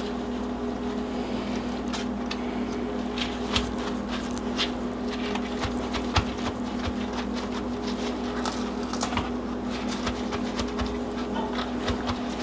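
Soft rustling and light taps of lettuce leaves and a paper towel being handled as the leaves are patted dry and arranged on a glass platter, over a steady low hum.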